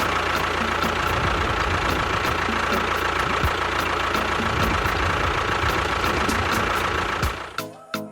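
Engine running steadily at idle, then cutting off suddenly near the end.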